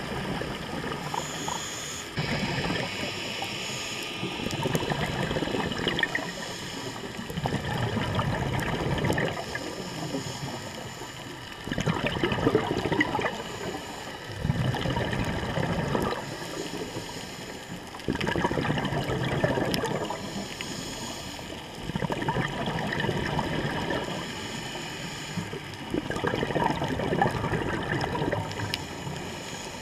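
Scuba diver breathing through a regulator underwater: bursts of exhaled bubbles gurgle for a couple of seconds, repeating every three to four seconds.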